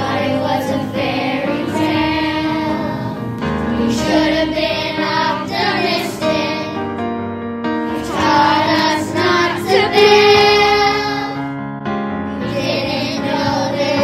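Children singing a song in English together over musical accompaniment.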